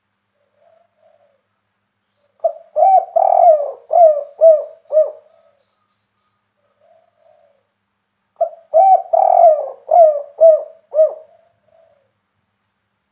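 Spotted dove cooing its 'kuk 3' song in a big voice: two phrases about six seconds apart, each a run of about six coo notes.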